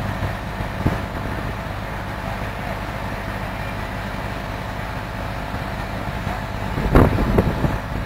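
Steady drone of farm machinery running, with a cluster of louder short bursts about seven seconds in.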